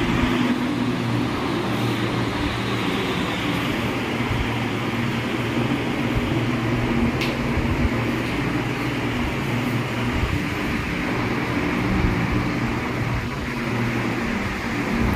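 A steady machine hum with an even rushing noise, unbroken throughout, with one short click about seven seconds in.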